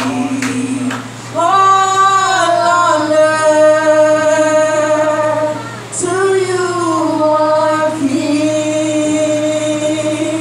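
Slow gospel worship singing: a voice holding long notes that slide up and down, with new phrases starting about a second in and again about six seconds in, over a steady low hum.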